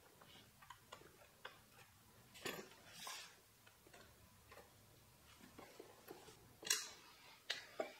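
Faint scattered clicks and rustles of wiring being handled and fed through a motorcycle's plastic tail section, with two sharper clicks near the end.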